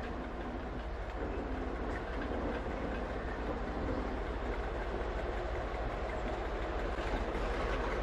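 Class 20 diesel shunting locomotive's English Electric engine running as it rolls slowly past on its own, a steady low rumble that builds a little, with light wheel clatter over the track.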